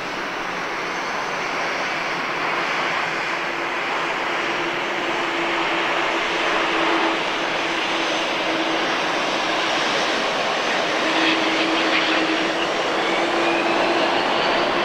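Boeing 777-200's twin jet engines at high power during the takeoff roll of a touch-and-go, a dense noise that grows steadily louder. A whine rises in pitch over the last few seconds.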